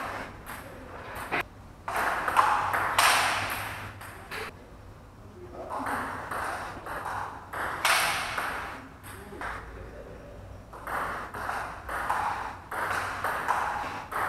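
Table tennis rally: a celluloid ball clicking back and forth off the rackets and the table in quick irregular strokes, with voices talking in the background.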